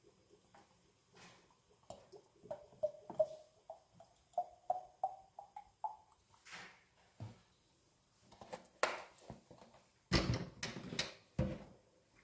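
Oil being poured into a small bottle, gurgling in short pulses whose pitch rises steadily as the bottle fills. Near the end come several sharp knocks and clatters, like glass and lids being handled.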